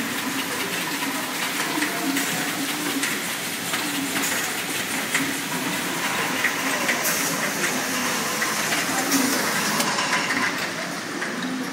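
Automatic bottle filling and capping machine running: a steady mechanical hiss and clatter with many small, quick clicks and knocks.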